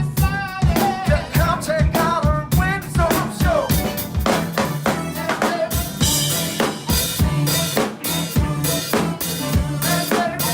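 Live band playing with the drum kit to the fore: a steady beat of kick drum and snare with rimshots. A wavering pitched lead line rides over it for the first few seconds, and cymbals wash in about six seconds in.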